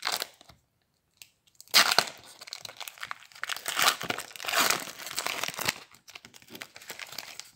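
Foil trading-card pack wrapper crinkling and tearing as hands open it, a brief crackle at first, then a run of louder crinkling bursts from about two seconds in that trails off into soft rustling.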